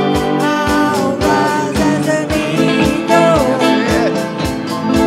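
Live worship song: a man's voice singing through a microphone over electric guitar and keyboard, with a steady beat.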